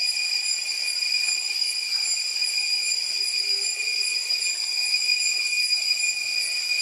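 Cicadas droning in a steady, unbroken high-pitched whine.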